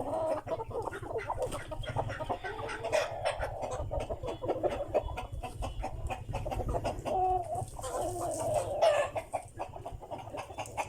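Philippine native chickens clucking, with scattered clicks and knocks throughout.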